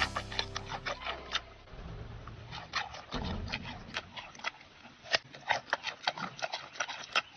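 Giant panda chewing a raw carrot: an irregular run of crisp crunches and clicks, coming faster in the second half.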